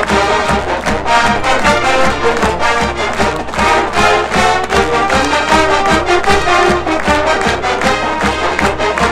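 Marching band playing the school fight song: brass chords over a steady drum beat of about two hits a second.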